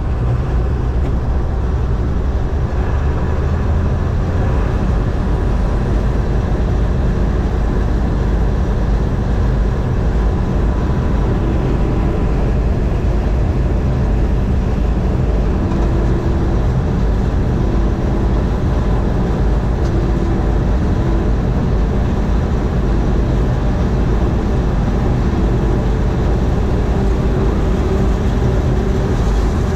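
John Deere 4400 combine running steadily under load while harvesting corn, its engine and threshing machinery making a constant low drone.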